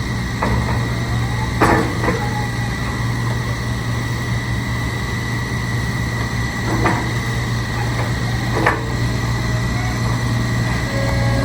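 Ditch Witch SK1050 walk-behind skid steer loader's engine running steadily with a constant high whine over the hum, and four short knocks spread through it.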